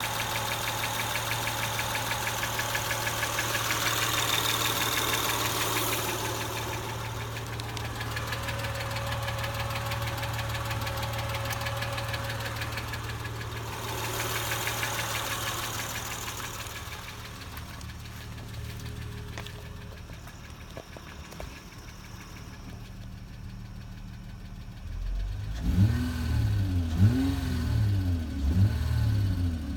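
Acura TL engine idling with a fast, steady ticking, which is plainest in the first half. Near the end the engine is revved briefly three or four times.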